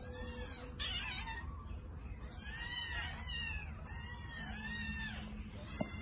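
Several kittens mewing, with repeated high-pitched calls that rise and fall, one after another and sometimes overlapping.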